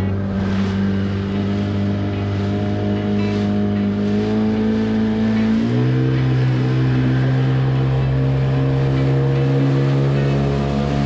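Outboard motor of a small aluminium boat running steadily under way, its pitch stepping up about halfway through as the revs rise.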